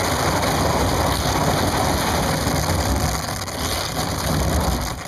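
9-foot Dagger kayak's hull pushing through thin ice on the river, a steady grainy crunching of the ice sheet breaking up around the boat, easing off a little near the end.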